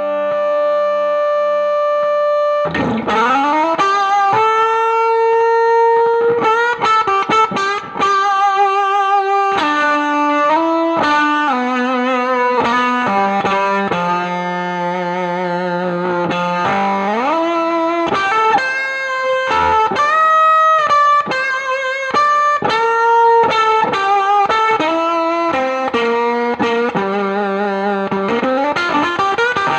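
Electric guitar played through a Spruce Effects Volcanoes silicon/germanium fuzz pedal into a Milkman The Amp 100 amplifier, playing a single-note lead line with slides, bends and vibrato. The tone is distorted with bright overtones.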